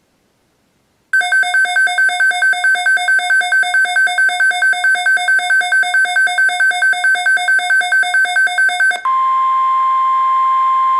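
A NOAA weather radio receiver's alert alarm beeping rapidly, about five beeps a second on one pitch, for about eight seconds, the radio's signal that a new alert has been received. It then switches abruptly to the steady single-pitch warning alarm tone broadcast by NOAA Weather Radio ahead of the alert message.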